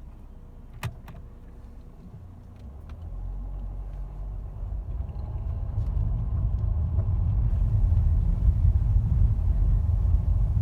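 Cabin noise of a Mercedes-Benz W212 pulling away and gathering speed: a low engine and road rumble that builds from about three seconds in, after a single click near the start. No seatbelt warning chime sounds with the warning disabled.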